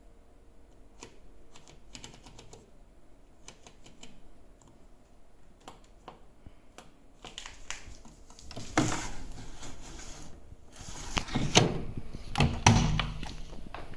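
Handling noises: scattered light clicks, then a louder run of clatter and knocks from about nine seconds in.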